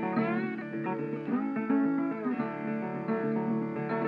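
Background guitar music: plucked guitar notes, some bent or slid upward in pitch.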